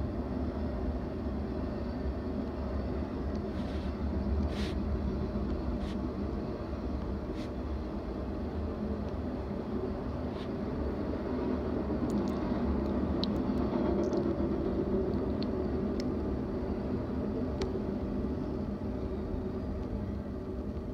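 BNSF intermodal freight train's container cars rolling past: a steady rumble of wheels on rail, with a few faint, brief high squeaks and ticks.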